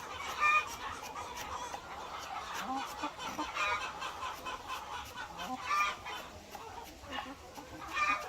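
Hens clucking, with a few louder short calls spaced a couple of seconds apart among quieter clucks and scattered clicks.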